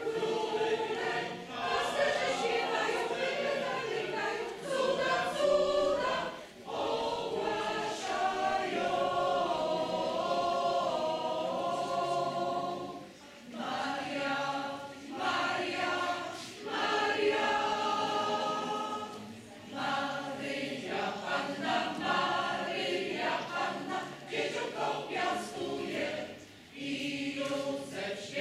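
Mixed choir of men and women singing, phrase by phrase, with short breaks about every six or seven seconds.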